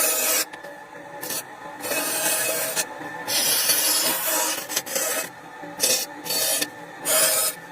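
A bandsaw cutting softwood in a string of short hissing bursts, about half a second to a second and a half each, with brief lulls between them as the piece is fed and turned along a curved line. The saw's steady running hum carries on underneath.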